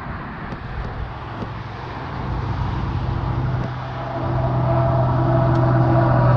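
Car engine and road noise, with a steady engine hum that grows louder a little past halfway.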